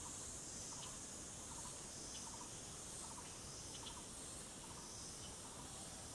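Tropical forest insects droning steadily at a high pitch. Underneath, a soft short chirp repeats about every three-quarters of a second, with a few faint higher ticks.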